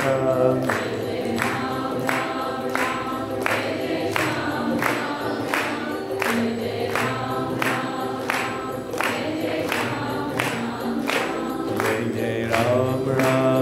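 Hindu devotional kirtan music: a group of voices singing a bhajan chant over a steady percussion beat.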